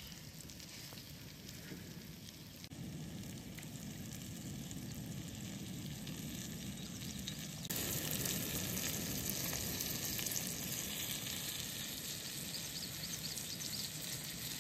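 Flour-dredged brook trout frying in foaming butter in a pan, a steady sizzle that gets suddenly louder and brighter about halfway through.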